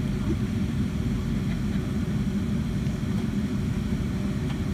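Cabin noise of a Boeing 757-200 taxiing after landing: a steady low rumble with a faint steady hum.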